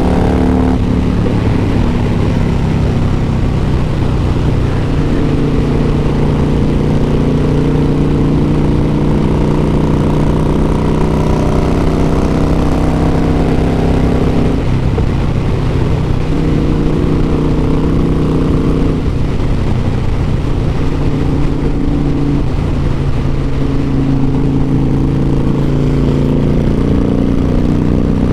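2002 Harley-Davidson Softail Deuce's Twin Cam V-twin running under way at cruising speed, a steady engine note whose pitch shifts about halfway through and again a few seconds later.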